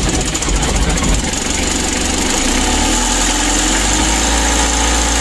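Mitsubishi L300 four-cylinder diesel engine running very rough, with a snoring, growling sound. Its note rises a little about halfway through.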